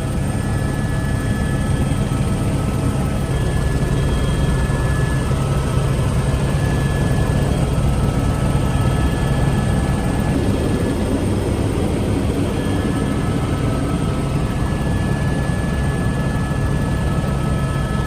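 Helicopter in flight heard from inside the cabin: steady rotor and engine noise with a thin, steady high whine over it.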